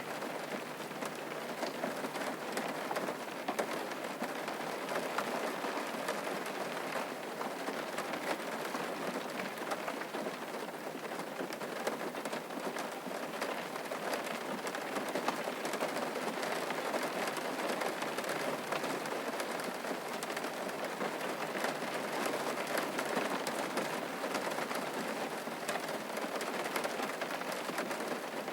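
Steady rain falling on a surface, an even hiss with a patter of fine drop ticks that stays level throughout.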